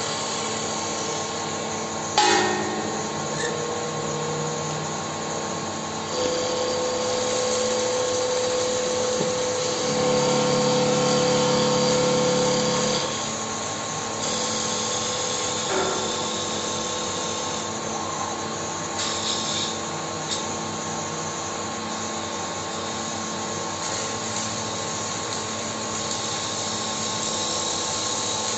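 Automatic CNC wood lathe turning small wooden parts, running steadily with the cutting noise of the tool on the wood. There is a sharp knock about two seconds in. A steady whine sets in about six seconds in and grows louder for a few seconds before dropping back.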